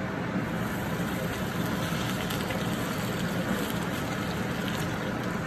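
Potato fries sizzling and crackling in hot oil in a wok, over the steady hum of a fan.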